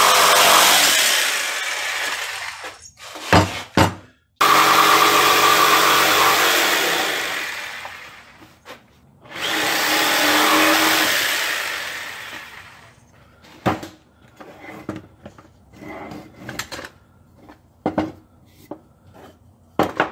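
Jigsaw cutting through a 2x4 in three runs of a few seconds each, the blade noise dying away between runs with a couple of sharp clicks. In the last third come scattered light knocks and clicks as the cut wood pieces are handled.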